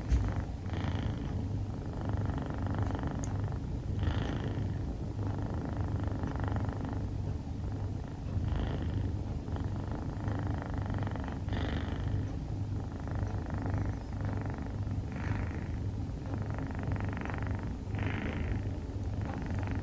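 Scottish Fold kitten snoring in her sleep: soft breathy snores, one with each breath about every second and a half, over a low steady rumble.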